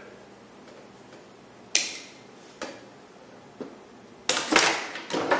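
Wire strippers cutting through the old socket's wires in a recessed light fixture: a sharp snip about two seconds in, then a couple of faint clicks. Near the end comes a run of louder snipping and handling noise.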